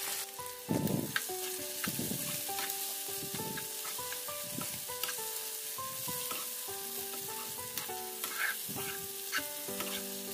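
Boneless chicken pieces sizzling in butter in a non-stick frying pan, a metal slotted spoon stirring and scraping through them with strokes about every second.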